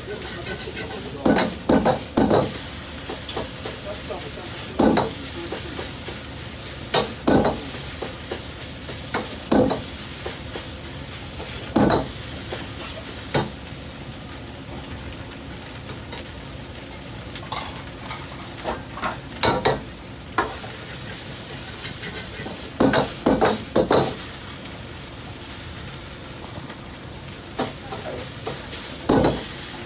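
Fried rice sizzling in a wok on a gas burner, with a metal ladle clanking and scraping against the wok in irregular clusters of sharp strikes.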